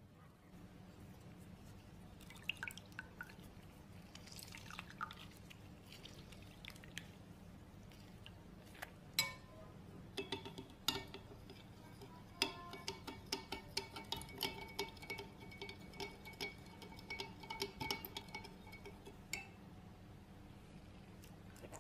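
Metal spoon stirring a drink in a glass jug to dissolve sugar. It taps and clinks against the glass again and again with a ringing tone. The clinking is faint at first and becomes frequent and louder from about nine seconds in until near the end.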